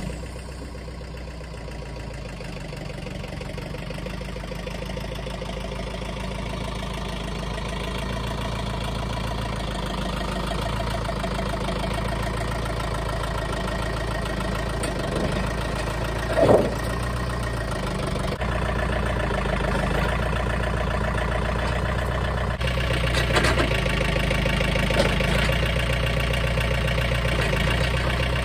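Compact tractor engine running just after being started, growing gradually louder as the tractor approaches. There is one short clank about two-thirds of the way through, and the engine gets louder and busier in the last few seconds as it works the front-loader grapple.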